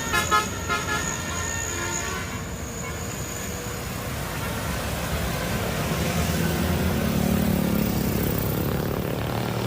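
A few short toots of a multi-tone basuri bus horn in the first second or so, then vehicle engine and traffic noise, with a low engine drone swelling about seven seconds in.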